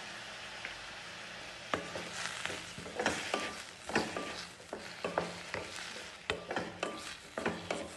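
Chopped onion, tomato, ginger and garlic sizzling in hot oil in a kadai while being sautéed. From about two seconds in, a utensil stirs and scrapes the pan in repeated uneven strokes, about two a second.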